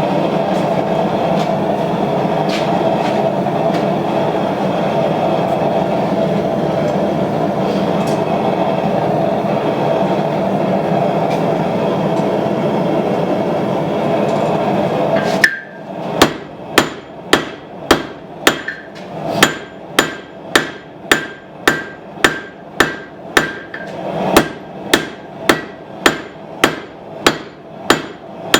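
A forge runs with a steady roar for about fifteen seconds. It then stops sharply, and a hand hammer strikes hot steel on an anvil about twice a second, each blow ringing briefly, as the tang of a puukko knife is drawn out.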